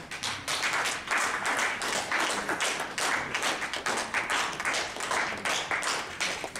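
Small audience applauding, many overlapping hand claps starting suddenly.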